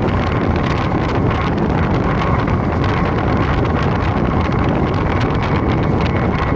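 Loud, steady wind rushing over the microphone of a BMW R1250GS motorcycle riding at speed, with the bike's boxer-twin engine and road noise running underneath.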